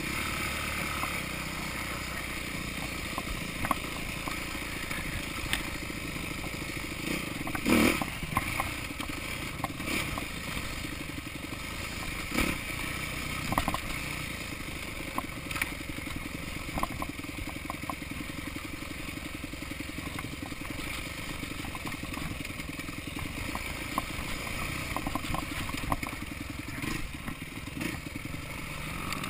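Yamaha YZ250F's four-stroke single-cylinder engine running as the bike is ridden over rough trail, heard up close from the bike, with scattered sharp knocks from the bike jolting over bumps, the loudest about eight seconds in.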